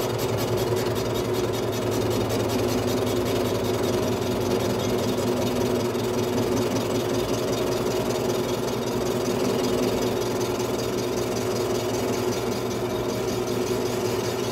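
Metal lathe running steadily with a hum and a fast, even ticking, turning a Stihl MS 500i chainsaw cylinder during a slow final cut lubricated with WD-40 to leave a smooth gasket surface.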